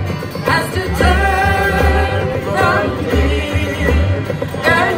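Live band playing on an outdoor stage: a sung melody over guitars and a pulsing bass line.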